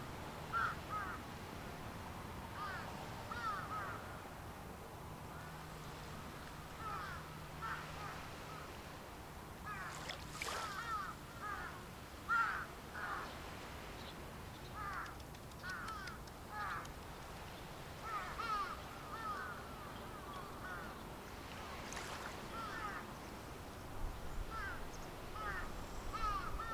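Birds calling: many short, arching calls given in quick clusters, again and again, over a faint steady background.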